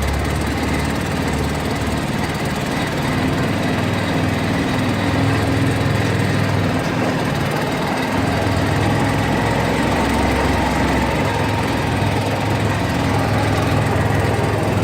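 Arctic Cat vehicle's engine running steadily while under way, really loud, its pitch shifting a little about halfway through.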